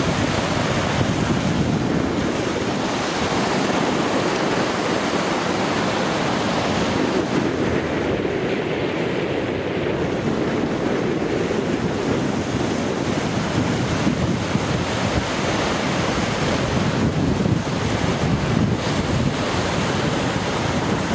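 Rough sea surf breaking and washing over rocks in a continuous rush, with wind buffeting the microphone.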